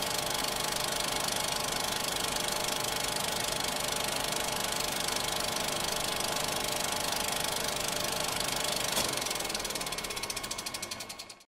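Film-projector sound effect: a steady mechanical whirr and clatter, then about nine seconds in a click and a run of rapid ticks that fade out as it winds down.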